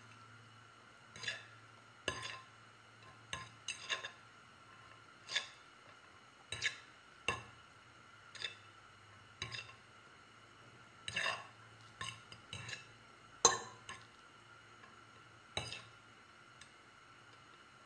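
Light clinks of cutlery and dishes: irregular sharp taps, roughly one a second, over a faint steady hum.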